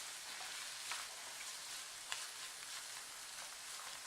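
Chopped vegetables (carrot, French beans, sweet corn) sizzling in hot oil in a pan on medium flame: a steady frying hiss with a few faint crackles.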